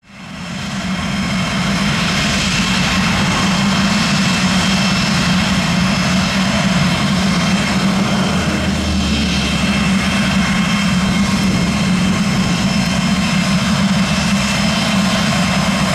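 Jet engine running steadily: a high whine over a low hum, fading in over the first second.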